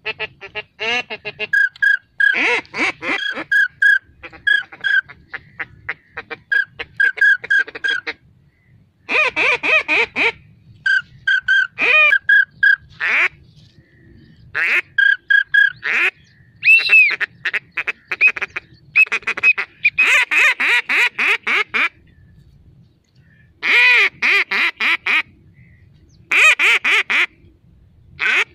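Two hand-held duck calls blown by hunters, sounding runs of rapid quacking and whistling notes in bursts with short pauses between them, to lure ducks in to the decoys.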